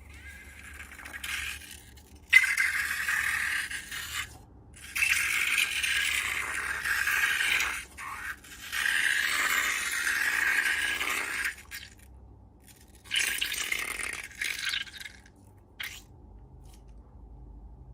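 Scraping, rattling noise in four stretches of a few seconds each, with short pauses between them.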